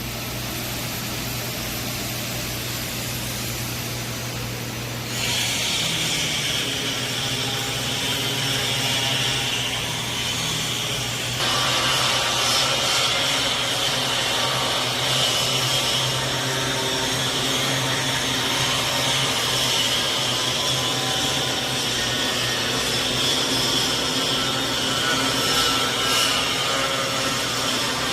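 Plasma keyhole welding arc on 12 mm stainless steel, a steady hiss over a low electrical hum. The hiss grows louder and brighter about five seconds in and again about twelve seconds in, then holds steady.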